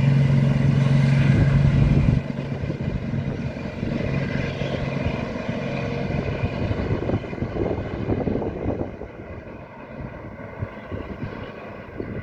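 Diesel train passing: a steady engine drone that drops off sharply about two seconds in, then a rumble with wheels clattering over the rail joints, fading away.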